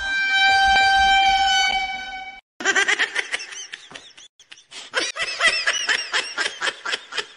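Meme sound effects: a steady horn-like tone, pitched high and sagging slightly, held for about two and a half seconds before it cuts off. After a short gap comes a rapid run of short squeaky chirps, several a second, each rising and falling in pitch.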